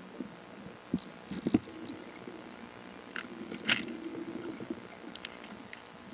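Underwater sound from a snorkeler's camera: scattered muffled knocks about one and one and a half seconds in, then a few sharp clicks, the loudest near the middle, over a low steady hiss.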